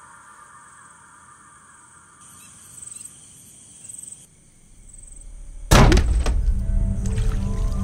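Quiet night ambience with faint high chirping. A low rumble then swells into a sudden loud hit about six seconds in, which gives way to a low, sustained music drone: a horror-film jump-scare sting.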